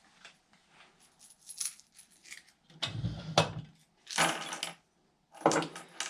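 Loose steel bolts and washers from a hardware kit clinking and clattering as they are handled, in a string of short separate bursts, with a heavier knock of metal parts about three seconds in.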